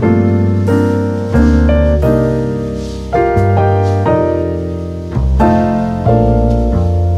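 Background piano music: chords struck and left to ring, changing about every second.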